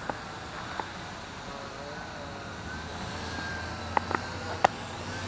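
Syma X8W quadcopter's motors and propellers whining in flight, the pitch shifting up and down as it is held against the wind. A few sharp clicks cut through, three close together near the end, the last the loudest.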